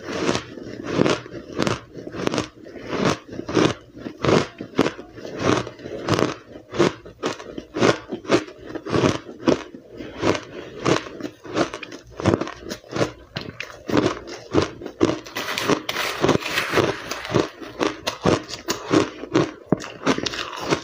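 Chewing and crunching a mouthful of powdery, blender-crushed ice, a steady run of crisp crunches about two a second.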